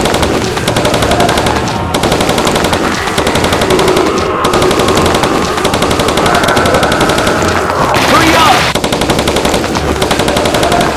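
Rapid automatic machine-gun fire, a dense unbroken stream of shots: a gunfire sound effect laid over the toy-blaster battle.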